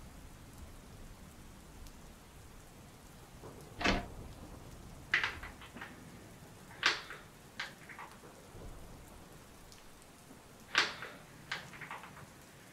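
Water splashing and light clicks at a bathroom sink: a handful of short, sharp splashes a second or more apart, over a quiet background.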